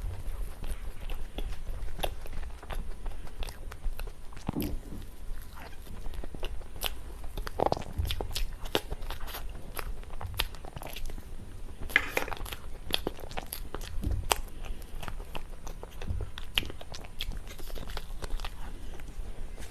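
Close-miked eating of cake: bites and chewing, with many small wet clicks and soft crunches, and a denser burst of crunching about twelve seconds in.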